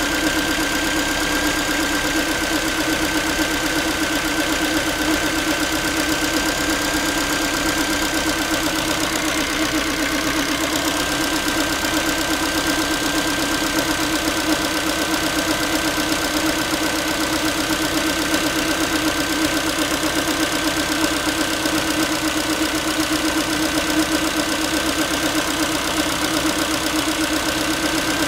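Ford Focus 3 1.6-litre, 125 hp petrol engine idling steadily, with a fast mechanical knocking and a tinny, pan-like rattle running through it. This is the unidentified noise the owner hears after a cold start.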